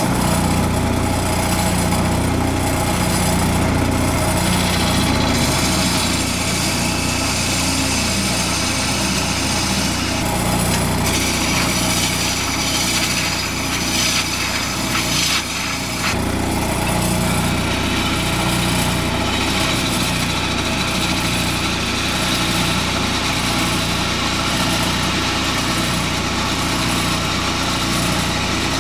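Wood lathe switched on and running steadily, with the cutting noise of a diamond parting tool turning a tenon in the spinning wooden post. The cutting noise grows and changes, strongest around the middle.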